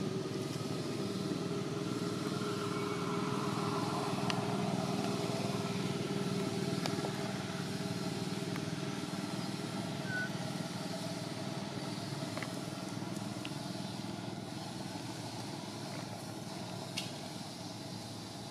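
A motor engine running steadily, swelling over the first few seconds and then slowly fading. A few faint clicks sound now and then.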